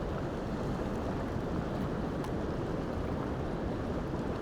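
Steady rushing noise of river current, with wind on the microphone.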